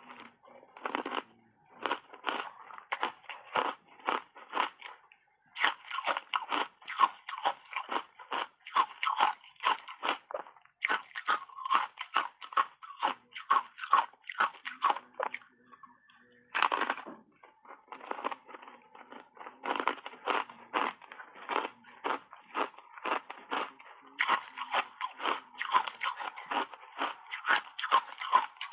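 Hard ice chips coated in matcha powder being bitten and chewed close to the microphone: rapid, sharp crunching in quick runs of several crunches a second, with short pauses between runs.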